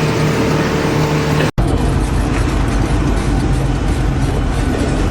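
Loud, steady engine or machinery noise. About a second and a half in it cuts off abruptly and a different steady noise with a deep low hum takes over.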